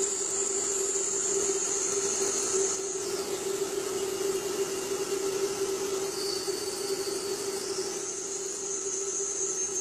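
Jet airliner in flight with its landing gear extended: a steady rush of air with a steady hum and a high whine. The whine drops in pitch about six seconds in and rises again about two seconds later.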